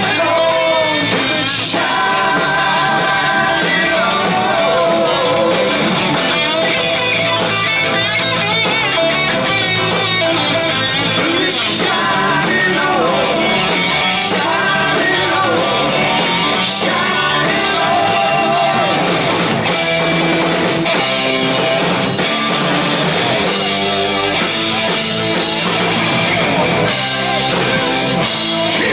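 Live rock band playing: sung vocals over electric guitar and drums.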